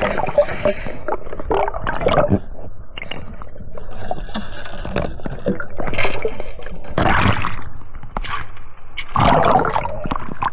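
Sea water sloshing and gurgling in shallow surf, with irregular louder surges and splashes every second or few.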